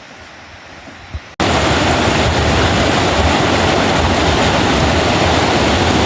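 Faint background, then about a second and a half in, loud steady rushing of a fast mountain river starts abruptly.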